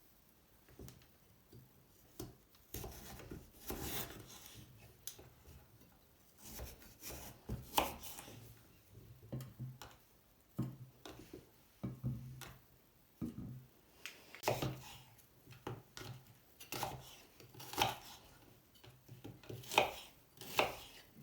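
Food being cut on a chopping board: irregular knocks and scrapes of a knife against the board, with some clatter of kitchen utensils.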